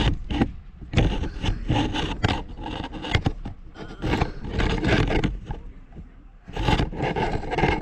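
Irregular bursts of scraping and rubbing noise with a low rumble beneath.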